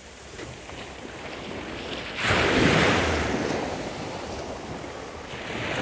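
Black Sea waves breaking on the shore: one loud surge about two seconds in that washes out over a couple of seconds, then another building near the end.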